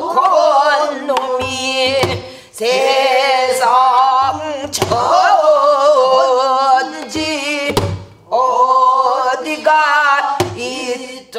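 A woman singing pansori in long, wavering held phrases, with a buk barrel drum struck once about every two to three seconds beneath the voice.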